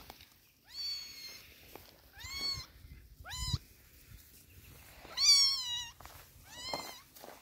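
Young kitten meowing repeatedly: five high-pitched meows, the fourth, about five seconds in, the longest and loudest.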